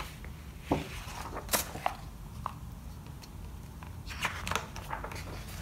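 Paperback picture book being opened, its cover and pages rustling and tapping in a few short handling noises, over a steady low hum.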